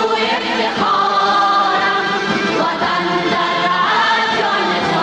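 Background music: a Persian-language patriotic song about the homeland, here a passage of held choir-like voices between sung lines.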